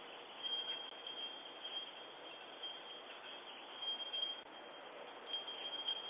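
Steady hiss of outdoor ambience picked up through a Ring video doorbell's microphone, with a faint high-pitched whine that comes and goes.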